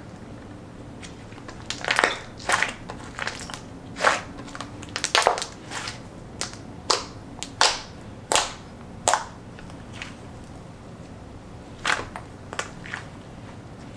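Cloud cream slime being squished and stretched by hand, giving irregular short, sharp crackles and pops, about a dozen, bunched in the first two thirds with a few more near the end.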